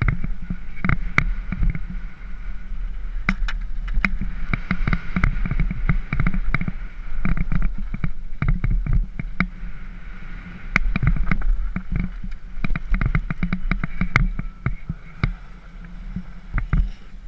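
Wind buffeting a helmet camera's microphone over the rattle of a mountain bike rolling fast down a dirt trail, with many sharp clacks and knocks as the bike jolts over bumps. It quietens a little near the end as the bike rolls onto smooth pavement.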